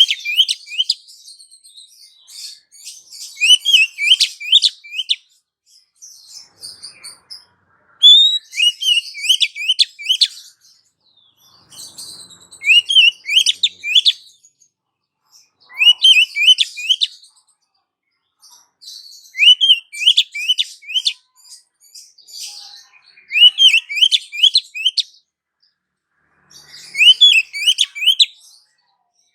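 Female oriental magpie-robin calling in short bursts of quick, rising chirps, about one burst every three to four seconds. This is the hen's call to a male, used as a lure to set male kacer singing.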